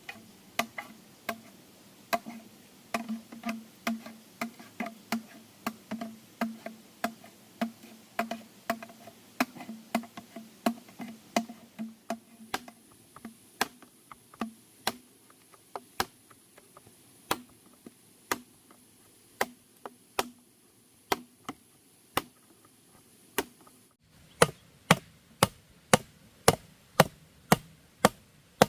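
Wood being chopped with a hand tool, a steady series of sharp knocks about two a second. After a short break near the end, the strokes come louder and more evenly spaced.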